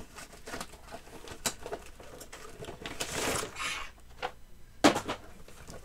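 Cardboard toy box being handled and opened: scattered clicks and rustling, a longer scraping rustle about three seconds in, and a sharp click near five seconds.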